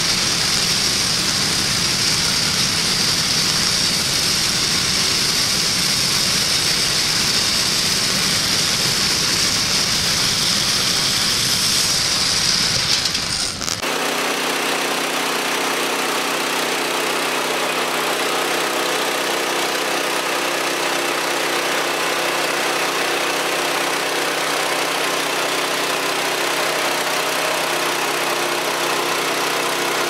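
Woodland Mills HM130 Max bandsaw sawmill's gas engine running wide open while the band blade cuts through a black walnut log, with a strong high hiss over the engine. About 14 seconds in the sound changes abruptly to a steadier engine drone with less hiss.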